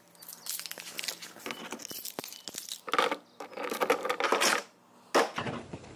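Small padlock on a steel electrical enclosure being handled and unlocked: irregular light metal clicks and rattles, denser around the middle.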